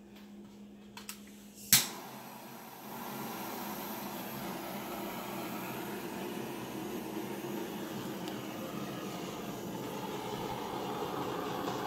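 A sharp click just under two seconds in, then a heat gun running with a steady rush of blown air, growing slightly louder toward the end.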